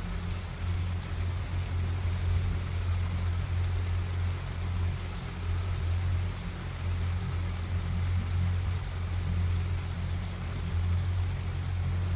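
Steady rain hiss over a loud, uneven low rumble from wind buffeting the phone's microphone during a storm.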